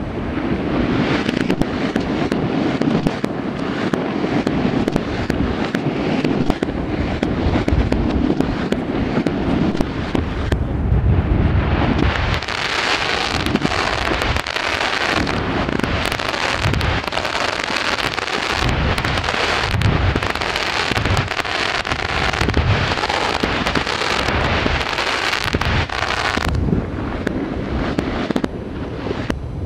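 Fireworks going off: a dense, continuous rattle of bangs and crackles. From about twelve seconds in, deep booms come roughly once a second, and the crackling thins near the end.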